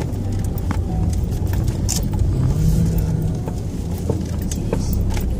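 Car engine and tyre rumble from inside the cabin as the car drives slowly over cobblestones, with scattered light clicks and rattles.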